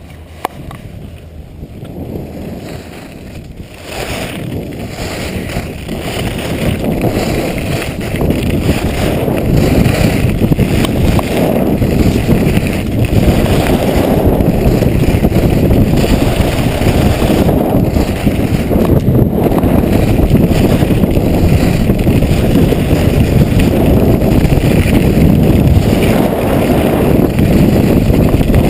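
Wind rushing over an action camera's microphone mixed with skis sliding over groomed snow in a fast downhill run. It grows louder over the first ten seconds or so as speed builds, then stays steady.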